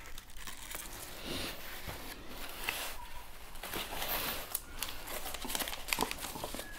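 Crinkling and rustling of silvery plastic packing wrap and cardboard being handled as a phone box is pulled out of a shipping carton, with scattered sharp clicks and crackles.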